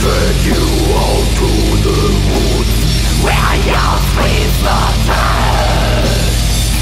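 Heavy metal instrumental passage: distorted electric guitars over fast drumming, with a lead guitar line of sliding notes and no vocals.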